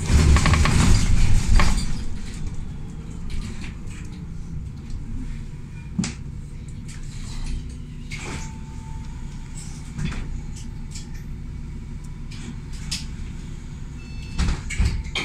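City bus heard from inside while driving: steady low engine and road rumble with scattered knocks and rattles, loudest and most rattly in the first two seconds.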